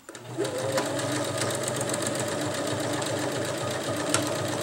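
Electric domestic sewing machine starting up and running steadily, sewing a seam with a fast, even stitching rhythm.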